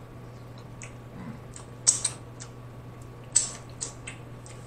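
Wet mouth sounds of eating crab in sauce: irregular lip smacks and chewing clicks, the sharpest about two seconds in and again about three and a half seconds in, over a faint steady low hum.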